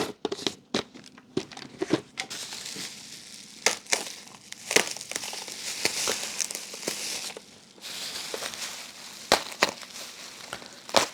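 Packaging being opened by hand: plastic wrapping crinkling and tearing, with many sharp crackles and stretches of rustling.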